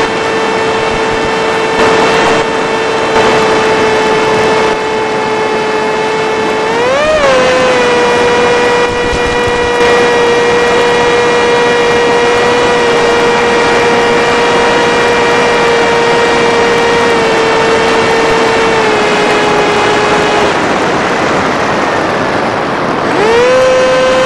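Electric motor and propeller of an FPV Skyfun flying wing whining at steady throttle over a rush of air, with a brief rise in pitch about seven seconds in. Near the end the motor cuts out for a few seconds, leaving only the rush of air, then spools back up with a rising whine.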